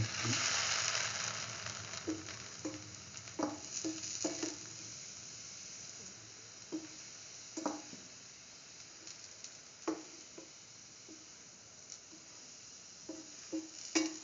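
Red lentil toast sandwich shallow-frying in hot oil in a pan. It sizzles strongly for the first two or three seconds, then the sizzle settles low with scattered pops and crackles of the oil.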